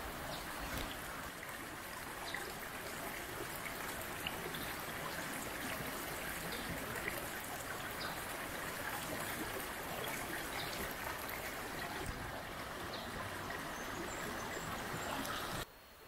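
Stream water running, a steady rushing and trickling, that cuts off abruptly just before the end.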